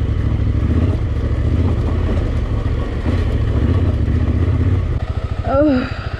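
Yamaha Ténéré 700's parallel-twin engine pulling at low revs over rocky trail. About five seconds in, the throttle eases and it settles to a slow, even chug, its separate firing pulses plain.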